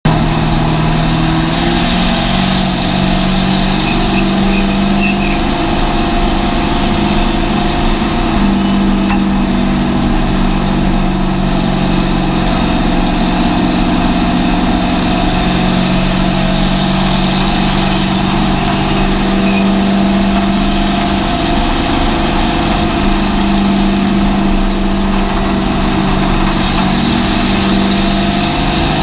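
Hobby stock race car's engine heard from inside its cabin, running at a steady low cruise, its pitch stepping up and down a little several times with the throttle, over a constant rumble of road and wind noise.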